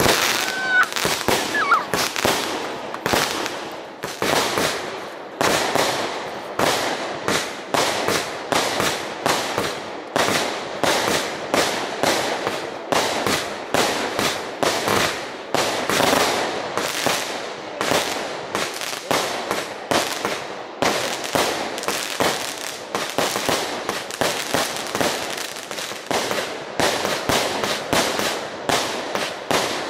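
Fireworks display going off: a continuous string of bangs and crackles, a few every second.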